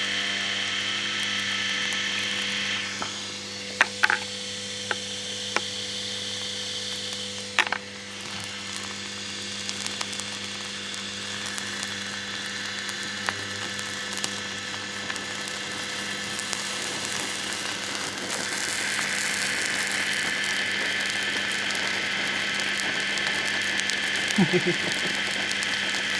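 Dishwasher pump motor being run to burn out: a steady electric whirr and rattle from its broken impeller spinning, over a constant hum. Sharp clicks and knocks come around 4 and 8 seconds in, and the whirr grows louder again from about 18 seconds.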